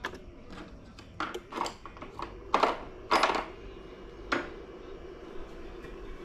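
Loose metal nuts and bolts clinking as hardware is sorted through by hand: a run of sharp metallic clinks, the loudest about two and a half and three seconds in.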